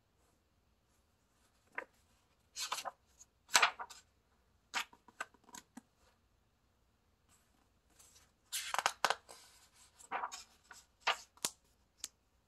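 Pages of a hardcover picture book being turned by hand, twice: each turn is a few seconds of short paper rustles, flaps and soft taps.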